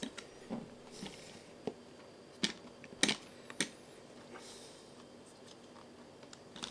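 A 3D-printed GPS mount being pressed and fitted by hand onto a carbon-fibre drone frame plate: irregular light clicks and taps, with a couple of brief scraping sounds.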